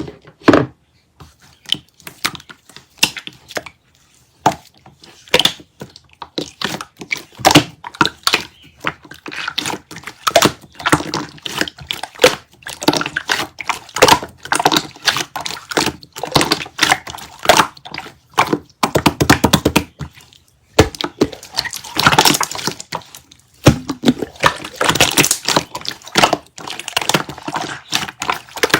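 Slime being squished and pressed by hand, giving a dense, irregular run of wet clicks and pops from trapped air. About nineteen seconds in there is a quick rattle of tiny pops.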